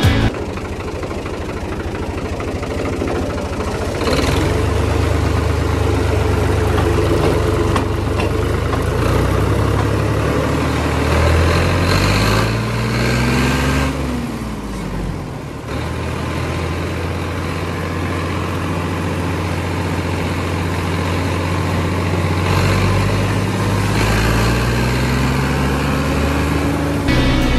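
Tractor diesel engine running under way. Its revs climb about halfway through, drop back, then climb again near the end.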